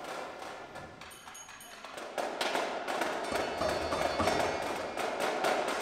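Indoor percussion ensemble playing. A quiet, fading passage carries a few high ringing tones about a second in. About two seconds in, a run of sharp percussion strikes starts and grows louder.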